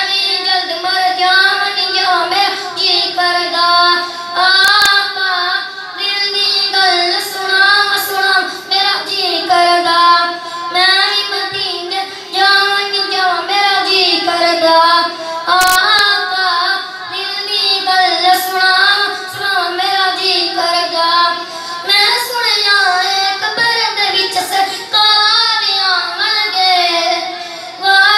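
A boy singing a naat solo, with no instruments, in a high voice with wavering, ornamented melodic lines.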